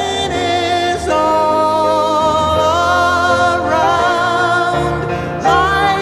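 Background music: a song with a singer holding long notes that waver slightly in pitch, stepping to new notes about a second in and again near the end.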